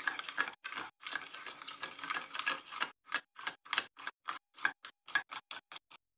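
A spoon stirring yeast, sugar and lukewarm water in a small bowl, clicking and scraping against the bowl in quick repeated strokes, about four to five a second in the second half, to dissolve and activate the yeast.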